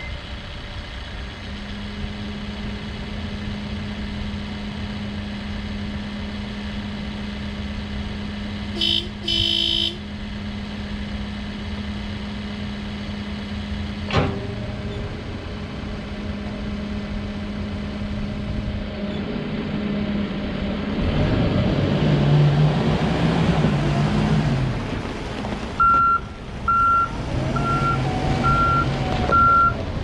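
2013 Case 580N backhoe loader's diesel engine idling steadily, with a short horn blast about nine seconds in. From about twenty seconds the engine revs up as the machine moves, and near the end its reversing alarm beeps at an even pace, about one beep a second.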